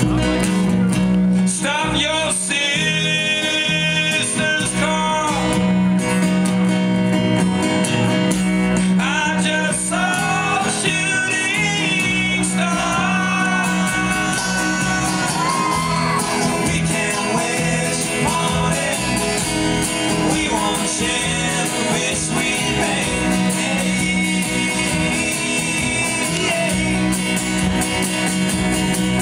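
Live band playing an acoustic folk song, with a sung vocal line over steady low notes.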